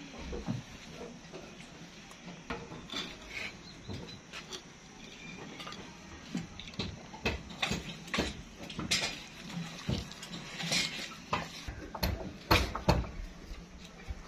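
Clay pottery knocking and clinking as hands work with a small clay pot and a terracotta bowl of raw chicken and spice: a run of short taps and clicks, more frequent in the second half.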